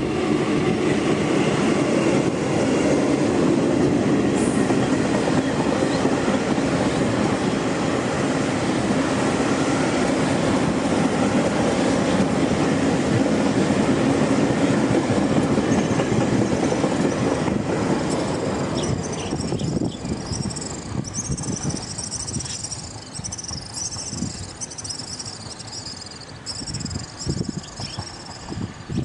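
Tour train running over a steel railway bridge: a steady rumble of wheels on rails that fades away about two-thirds of the way through. As it dies down, high, quickly repeated chirping takes over.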